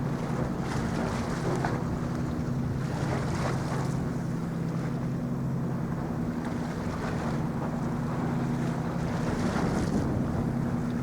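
Steady low drone of a ship's engine, several hum tones holding level throughout, with wind noise on the microphone and the wash of water.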